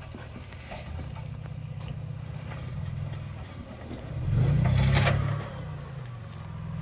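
Third-generation Toyota 4Runner crawling over boulders, its engine running low and steady, then revving up briefly about four seconds in with a sharp knock near the peak before settling back.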